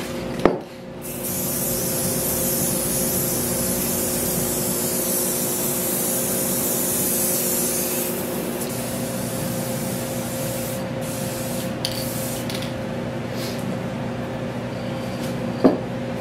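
Aerosol can of clear coat spraying onto a wooden gate frame: a steady hiss starting about a second in and stopping at about eight seconds. A few light knocks follow in the second half.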